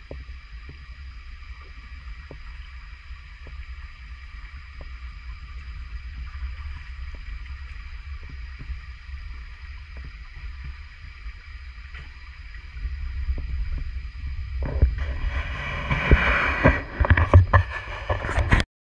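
A steady low rumble of microphone handling and wind, with a faint steady high hum. For the last four seconds there is loud splashing and sloshing of water, with a few sharp knocks, as hands grope among rocks in a shallow stream.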